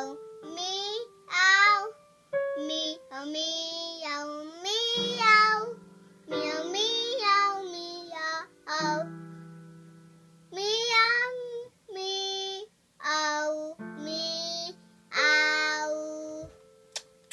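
Young girl singing a song in short phrases with pauses between them, over steady, held instrumental accompaniment.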